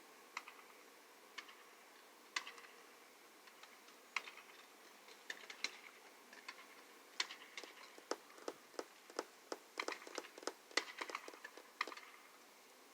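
Quiet, irregular sharp clicks and taps, a few scattered at first and then coming thick and fast in the second half.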